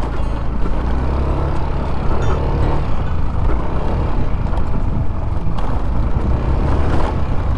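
Yamaha Aerox 155 scooter's single-cylinder engine running steadily under way on a rough road, with a heavy low rumble and a few short knocks from the bumpy ride.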